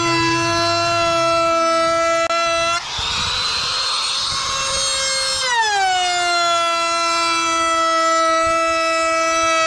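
A high-speed electric motor runs with a steady whine. About three seconds in, the whine gives way to a rushing hiss, and a couple of seconds later it comes back, sliding down in pitch and settling again.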